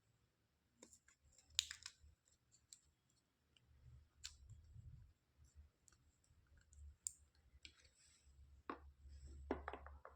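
Scattered light clicks and taps of plastic toy pieces being handled, with a sharp cluster about a second and a half in and another near the end.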